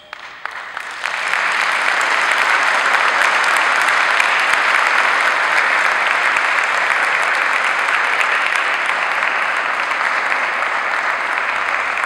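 Audience applauding: a few scattered claps at first, swelling about a second in to steady, dense applause.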